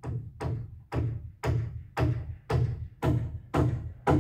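Hammer driving nails into wood framing: a steady series of about nine sharp blows, roughly two a second, each with a short ringing tail, over a low steady rumble.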